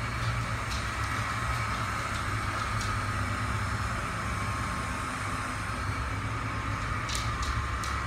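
Kalley robot vacuum cleaner running: a steady whirring hum from its motor and brushes, with a few light clicks near the end.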